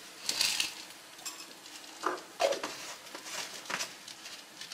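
Kitchen handling sounds: a few short clatters and clinks of dishes and utensils, spread across a few seconds, while spices are being added for a sauce.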